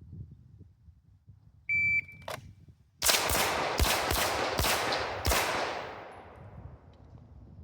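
A shot timer's start beep, then about a second and a half later a quick string of pistol shots, each ringing out. The last shot comes about 3.6 seconds after the beep.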